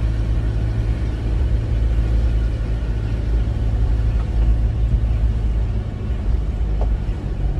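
Steady low rumble of a car heard from inside its cabin while it tows a horse float with a horse aboard.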